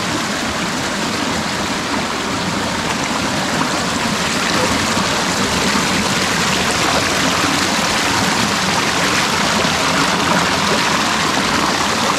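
Creek water running steadily, a continuous rushing noise that gets a little louder about four seconds in.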